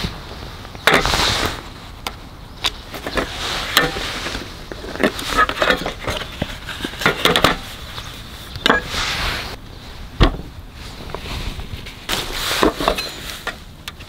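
Irregular clacks, taps and rustling of gear being handled on a folding aluminium camp table as a wooden cutting board is set down on it, with a sharp knock about ten seconds in.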